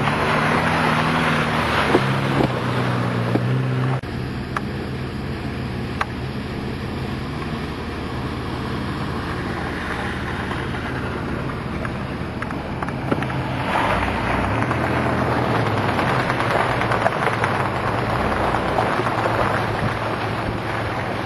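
Off-road truck engine running, its note shifting in the first few seconds and then steadier, under a rushing noise that swells in the second half.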